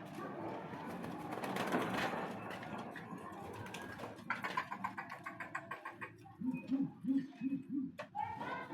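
Racing pigeons cooing: a run of about five short, low coos in the second half, with a rapid burst of clicking a little before them.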